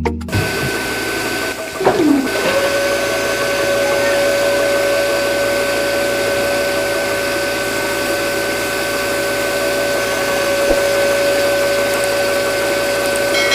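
Small DC motor of a toy-scale model spinning up about two seconds in and then running at a steady whine, over a steady rushing noise.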